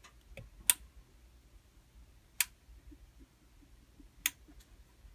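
Three-way lamp switch clicked by hand three times, about two seconds apart, stepping the lamp through its brightness settings, with a few fainter ticks of the fingers on the switch between.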